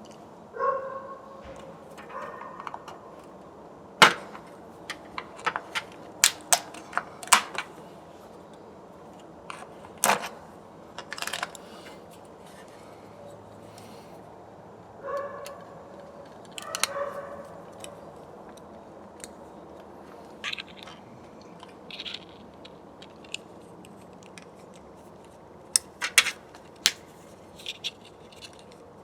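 Irregular sharp clicks, taps and knocks of hand tools, screws and plastic parts as an old wired doorbell button is taken off its mounting, with two brief pairs of high squeaks near the start and about halfway.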